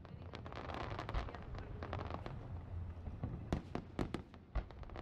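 Aerial fireworks bursting: a dense run of crackling and bangs over the first couple of seconds, then a few separate loud booms in the second half.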